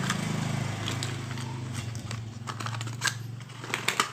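A small battery-powered nano mist sprayer buzzing steadily as it is tested, with clicks and plastic rattles as it is handled. The buzz cuts off near the end.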